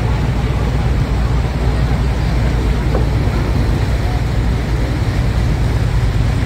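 Steady low engine drone of a moving passenger boat, under a constant rush of water and wind noise.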